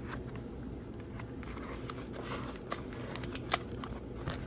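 Packaging being handled: scattered small clicks and faint crinkling over a steady low hum.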